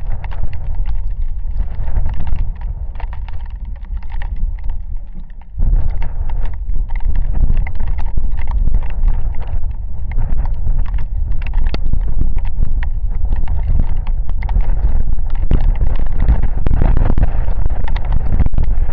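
Rainstorm: a dense patter of raindrops close to the microphone over a heavy low rumble of wind buffeting it, the wind rising about five seconds in and staying strong.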